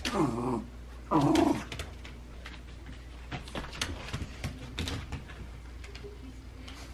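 Small dogs playing: two short vocal bursts, play barks or growls, in the first second and a half, then scattered light clicks of claws scrabbling on a hardwood floor.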